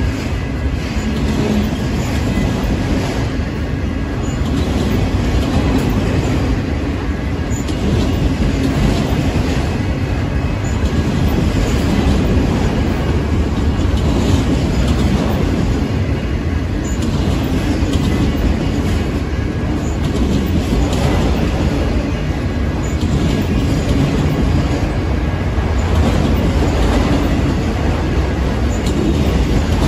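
Freight train of autorack cars rolling past close by: a steady, loud rumble and clatter of steel wheels on rail, with scattered clacks.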